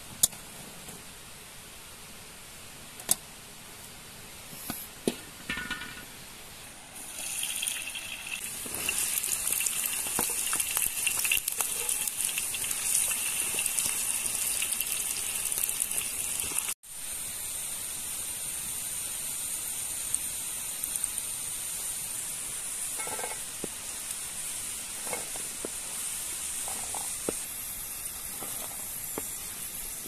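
Diced potatoes frying in hot oil in a wide pan, a steady sizzle that starts about seven seconds in after a few sharp clicks and knocks, with a cut partway through. The spoon stirs and lifts them, giving small clicks and scrapes.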